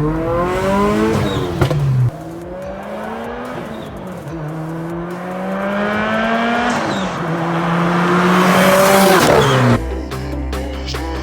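Motor vehicle engine accelerating through the gears: its pitch climbs steadily, drops suddenly at a shift about two seconds in and again about seven seconds in, then climbs again. Near the end it cuts off abruptly and music takes over.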